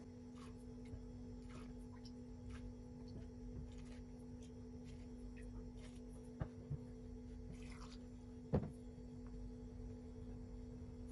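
Faint trickling and splashing of brine ladled into a glass jar packed with chili peppers, with a few light clicks, the sharpest about eight and a half seconds in. A steady low mains hum runs underneath.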